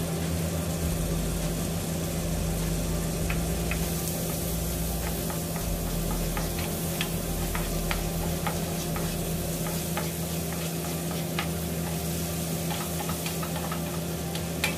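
Diced red onion frying in melted butter in a nonstick pan, sizzling steadily, while a slotted spatula stirs and scrapes through it with scattered light clicks. A steady low hum runs underneath.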